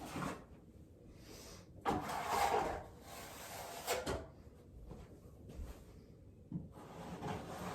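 Hand work on drywall: a few noisy scraping strokes, the longest about two seconds in and another about four seconds in, with light knocks between them.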